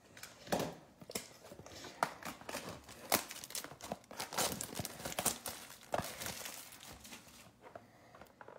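A 2020 Donruss Football trading-card blaster box being unwrapped and opened by hand: irregular crinkling and tearing of its wrap and cardboard, with a few sharper crackles, dying away near the end.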